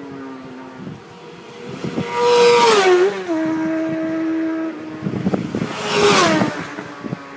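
Road-racing motorcycles at speed passing close by, twice: about two seconds in and again about six seconds in, each engine note dropping sharply as the bike goes past. Between the passes a bike's engine holds a steady note.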